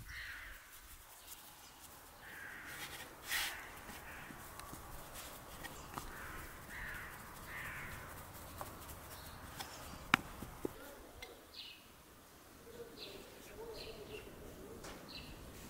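Birds calling in the open air: several harsh caws in the first half, then short high chirps near the end. A single sharp click about ten seconds in is the loudest sound.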